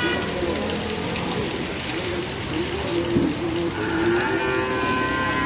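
Rain falling steadily on a city street, with a low wavering tone that keeps going with short breaks, and a vehicle horn sounding for the last second or so.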